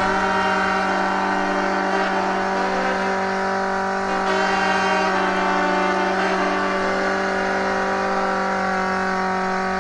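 Off-road buggy's engine held at steady revs under load as it climbs a steep, muddy slope.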